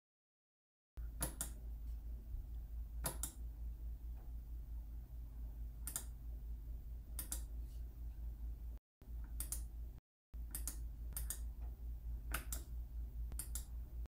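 Scattered clicks from a computer in use, about nine in all and some in quick pairs, over a low steady hum. The sound cuts out completely for about the first second and twice more briefly later on.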